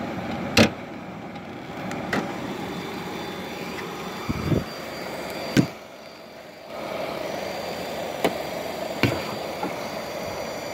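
Nissan Altima hood being opened: sharp metallic clicks and knocks as the hood latch is released and the hood is raised and propped on its rod, the loudest click about half a second in and four more spread over the following seconds, over a steady background hum.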